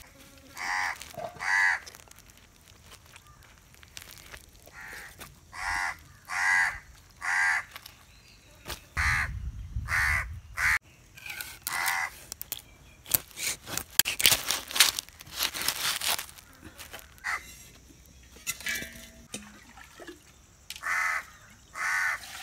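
Crows cawing again and again, short harsh caws that come in loose runs, some in quick pairs. Partway through, sharp clicks and scrapes of a knife cutting through a skipjack tuna come between the caws.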